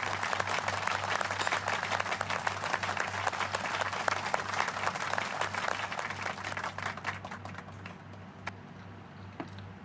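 Applause: a dense patter of many claps that starts suddenly, then thins out to a few scattered claps over the last couple of seconds.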